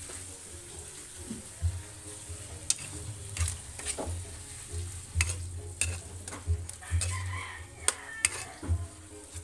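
Chopped pork frying and sizzling in a wok, with a metal ladle scraping and knocking against the pan many times as it is stirred.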